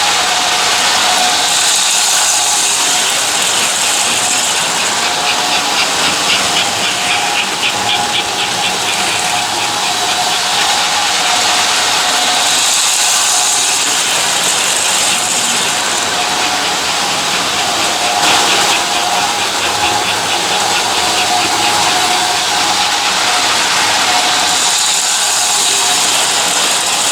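American Flyer S-gauge toy train running continuously around its track, with a steady motor hum and rattle. A high hiss swells and fades about every eleven to twelve seconds, and between the swells come bursts of rapid rhythmic clicking, as the train comes round its loop.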